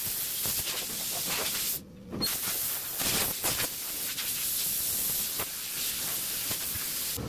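Compressed air hissing steadily from a blower nozzle as it blows leftover blasting media out of a bare, media-blasted car body. The air cuts off briefly about two seconds in, then comes back on.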